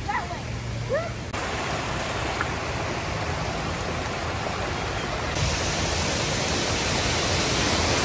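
Steady rush of water running over a small rocky cascade into a pond. It begins suddenly just over a second in and gets louder about five seconds in.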